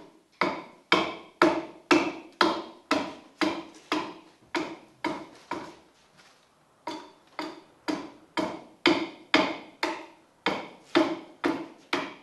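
Rapid, regular adze blows chopping into a large square timber, a little over two strikes a second, each with a short ringing knock, as the curve is dressed onto the end of a head block. The strokes pause briefly a little after the middle, then resume at the same pace.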